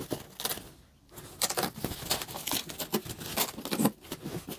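Thin foam packing sheet being peeled off an air fryer and gathered up by hand: irregular rustling and crinkling, with a short lull about a second in.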